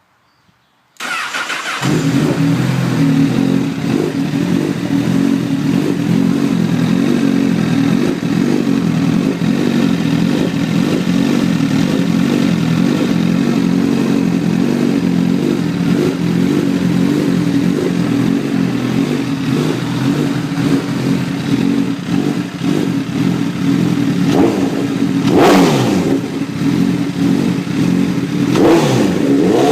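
A 2009 Honda Repsol-edition motorcycle engine is started about a second in, catches and idles steadily, with two brief revs near the end. It is running to show a ticking noise from the engine.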